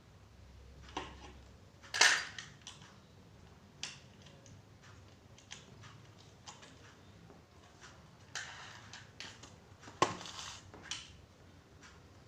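Hard items being handled: a scattering of clicks and knocks, with two sharper, louder knocks about two seconds and ten seconds in.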